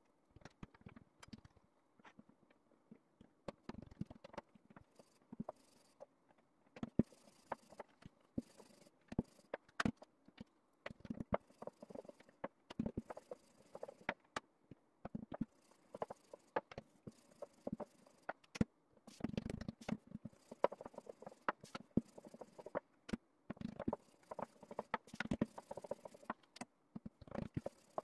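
Wooden rolling pin rolling out thin baklava dough on a floured wooden table, with irregular knocks and taps as the pin and the dough are handled and set down, and short stretches of rolling rumble.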